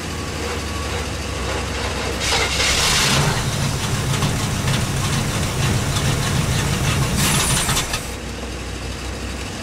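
Chevy 350 small-block V8 being cranked over by the starter without firing, the cold-start attempt after the truck has sat for months. Two short hisses, about two seconds in and near the end, are starting fluid sprayed into the carburetor.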